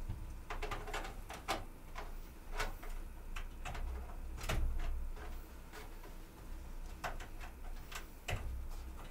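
Irregular plastic clicks and taps from an 8-pin 12 V CPU power connector, two red 4-pin halves, being pushed and worked into its socket on the motherboard. The loudest click comes about four and a half seconds in.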